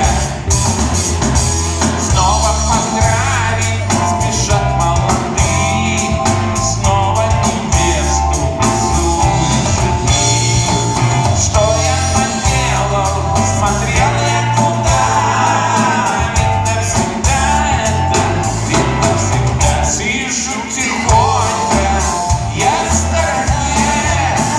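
Music with singing over a steady beat and a strong bass line.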